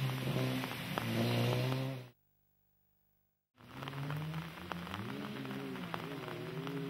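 Peugeot 106 rally car engine revving and shifting as it passes, cut off about two seconds in by a second and a half of silence. Then a rally car's engine approaches with revs climbing, over tyre hiss and spray from the wet road.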